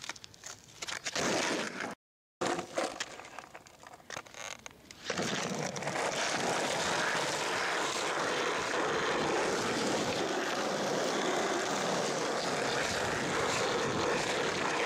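Skateboard sounds: a few sharp knocks and clatter of the board in the first seconds, then, from about five seconds in, the steady rolling rumble of skateboard wheels on rough asphalt.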